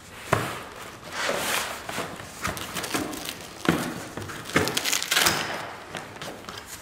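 Fabric rustling with about half a dozen sharp clicks and knocks, from hands working locking pliers and a Velcro strap against a fabric-covered tail frame.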